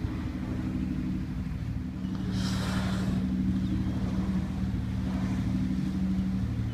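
Whale-watching boat's engine running with a steady low hum. About two and a half seconds in, a brief rush of noise sounds over it.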